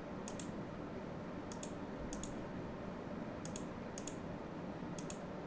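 Computer mouse clicking: about six quick press-and-release clicks, spaced half a second to a second apart, over a steady low room hum.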